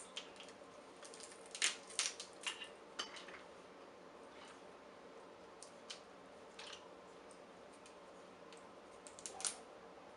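Snow crab leg shells cracking and snapping as they are broken open and the meat is pulled out by hand, close to the microphone. There is a cluster of sharp cracks in the first three seconds, a few scattered ones after, and another group near the end.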